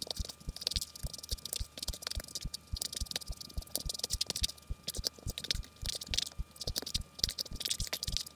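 A wooden spoon stirring and pressing a crumbly oat-and-flour topping in a stainless steel mixing bowl: an even rhythm of gritty scrapes and soft knocks, about four strokes a second.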